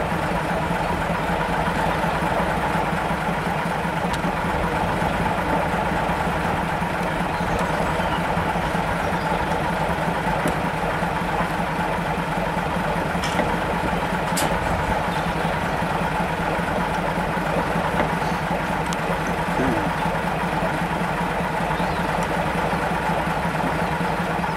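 Small diesel shunting locomotive idling steadily, with a couple of faint clicks about halfway through.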